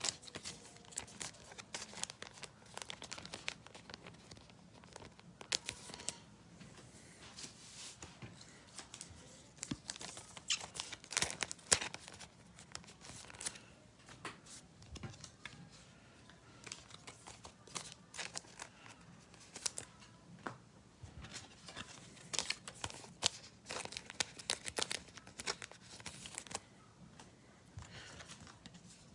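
Trading cards being handled and slid into soft plastic sleeves: faint, irregular crinkling and rustling of thin plastic with small sharp clicks.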